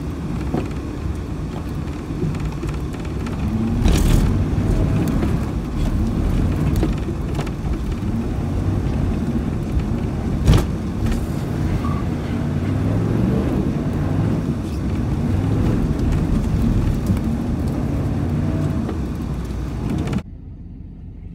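A Chevy 6.5-litre V8 turbo diesel in a dually pickup, heard from inside the cab, revving up and down as the truck is thrown around on snow. Two sharp knocks come through, one about four seconds in and one about ten seconds in.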